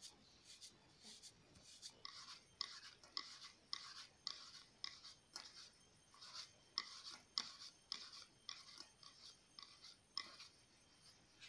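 Fingers rolling rice-flour dough into small chushi strands on a plate: faint, rhythmic rubbing strokes, about two a second, clearer from about two seconds in.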